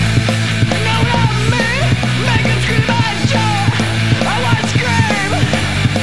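Punk rock song played by a full band: a steady drum beat with cymbals under bass and guitar, with a melody line that slides up and down in pitch.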